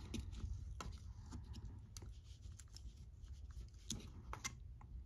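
Utility knife blade scraping and ticking faintly in the seam of an Apple AirTag's plastic shell as it probes for the internal clips that hold the two halves together. A few small sharp clicks stand out, two of them close together about four seconds in.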